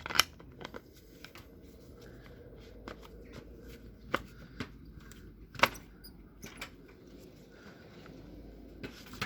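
Plastic housing parts of a DeWalt DCH273 hammer drill being handled and pushed into place: scattered sharp clicks and knocks, the loudest just after the start and about halfway through.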